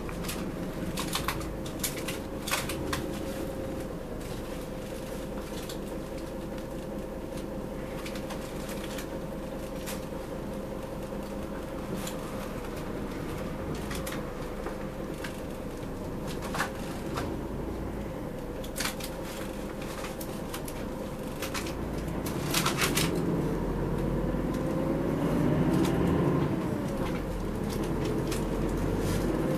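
Inside a city route bus: the engine idles with a steady hum while the bus stands, with scattered clicks and rattles. About three-quarters of the way through, the bus pulls away and the engine pitch rises and grows louder.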